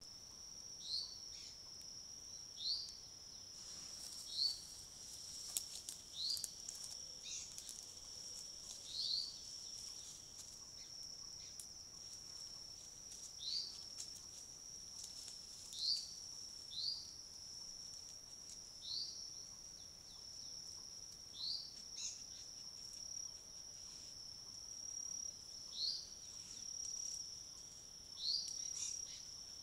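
Forest ambience: a bird's short chirp repeated every one to three seconds over a steady high-pitched whine, with a few faint clicks now and then.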